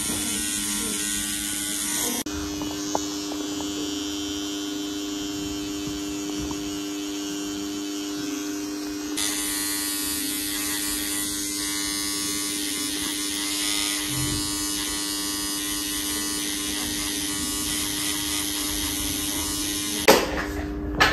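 Electric permanent-makeup pen buzzing steadily as its needle works the eyebrow, its tone shifting slightly about two seconds in and again around nine seconds. A few sharp knocks near the end.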